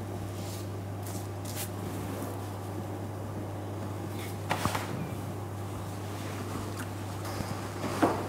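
A wide paintbrush working paint onto a plastered wall: a few soft strokes and light knocks, over a steady low hum.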